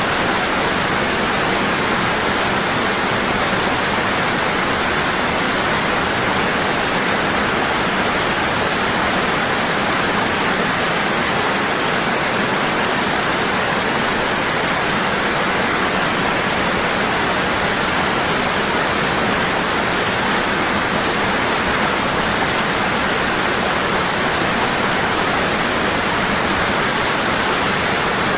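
Waterfall falling strong and constant: a steady, even rush of water.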